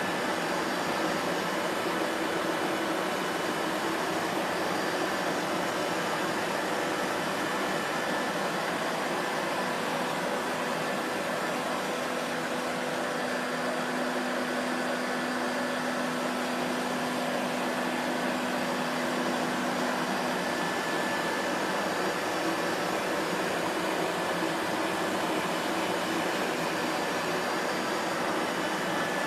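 Vacuum cleaner running steadily: an even motor-and-airflow rush with a faint steady whine, no changes in pitch or level.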